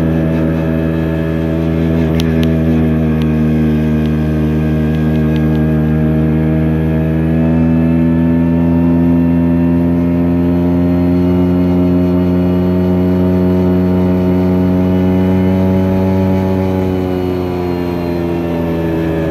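Vespa scooter's engine running under steady throttle while riding, its pitch rising slowly through the middle and falling away near the end.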